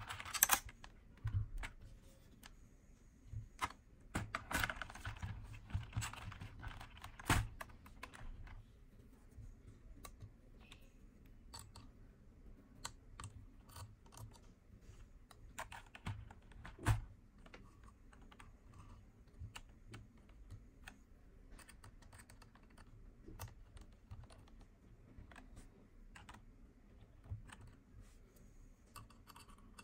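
Irregular light clicks and taps from hands handling and adjusting the metal arm, clamp and control box of a keyboard auto-clicker. Rustling runs about four to seven seconds in, and a few louder clicks come near the start and about halfway through.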